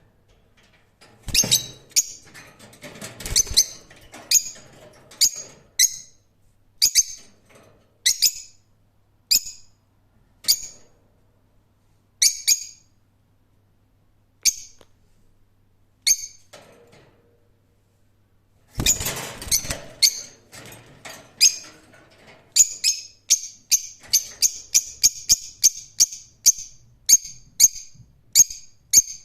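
Lovebird chirping: short, sharp, high-pitched chirps, spaced out at first with a couple of rougher, scratchy stretches, then coming quickly in a rapid run over the last several seconds.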